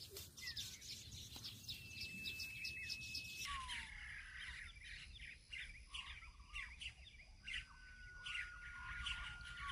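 Birds chirping faintly: many short chirps and a few downward-slurred call notes, with a thin steady whistling tone held for a few seconds near the start and again near the end.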